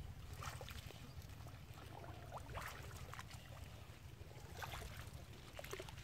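Legs wading through shallow water choked with water hyacinth: a few irregular sloshing, rustling steps over a steady low rumble.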